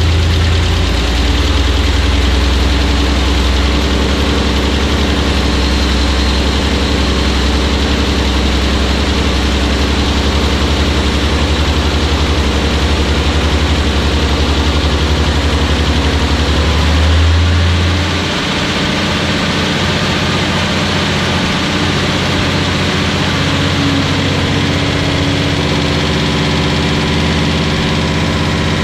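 Freshly rebuilt Datsun 280Z L28 straight-six running at a fast idle of about 1800 RPM on its first start-up, held above 1500 RPM for break-in. About two-thirds of the way through, the deep low rumble drops away and the engine runs on with a higher, lighter note.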